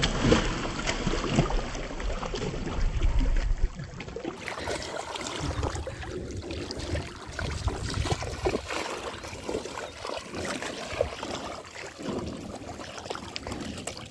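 Water splashing and sloshing in a shallow river as a child thrashes after a fish and then wades through it. The first few seconds are the loudest, and uneven splashes of wading steps follow.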